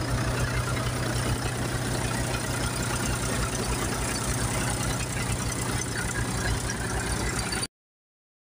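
Mahindra tractor's diesel engine running steadily as it drives a groundnut thresher, with the thresher's drum whirring and rattling over it. The sound cuts off abruptly about a second before the end.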